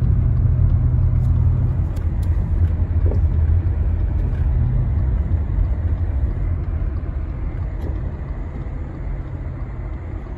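Truck's engine and tyres running with a low rumble inside the cab while driving on a snow-packed road. The sound dies down gradually as the truck slows in traffic.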